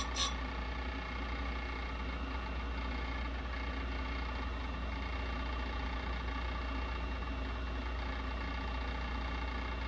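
Electric bench chain grinder's motor running steadily with an even hum, the wheel spinning without cutting.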